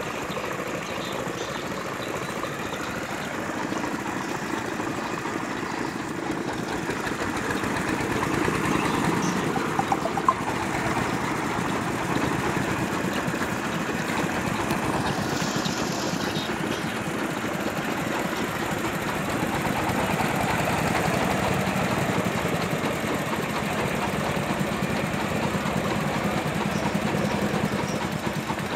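Small engine on a homemade PVC-pipe boat running steadily with a rapid putter, driving a long-shaft propeller through the water. One short sharp click about ten seconds in.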